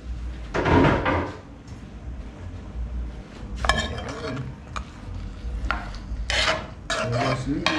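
A plastic spoon stirring and scraping pork ribs in thick sauce inside an aluminium pot, with a louder clatter about a second in and several short scrapes later.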